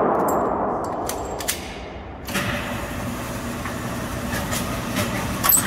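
Motorized overhead target carrier at an indoor range running along its track, bringing the paper target back. A few faint clicks come first; the carrier starts about two seconds in, and there is a sharp click near the end.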